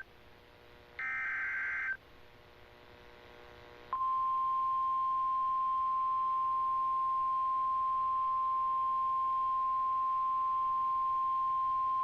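Emergency Alert System signalling. The tail of a SAME data header plays as a one-second burst of warbling data tones about a second in. After a short pause, the National Weather Service's single steady attention tone starts about four seconds in and holds.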